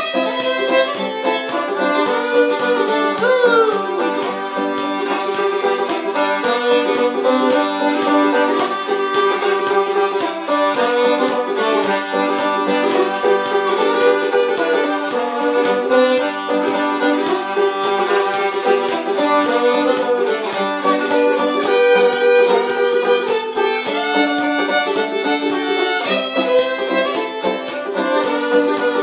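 Fiddle and five-string banjo playing an old-time tune together without a break, the fiddle most prominent.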